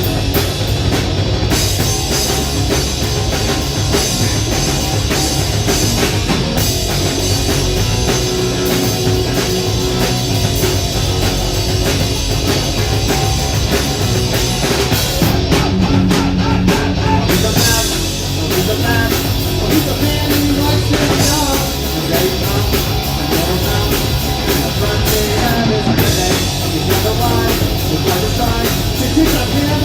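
Live rock band playing loudly, a drum kit driving the song.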